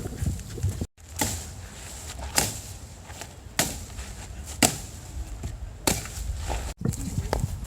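Repeated sharp chopping blows, about one a second, each a short knock that stands out over a faint background. The sound cuts out completely for an instant twice, about a second in and near the end.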